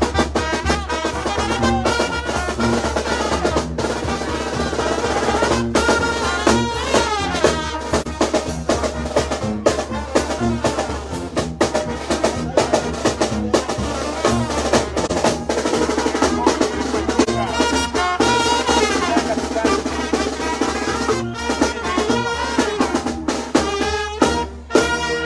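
Street brass band playing a lively tune: sousaphone bass line, brass horns carrying the melody, and snare and bass drums keeping a steady beat.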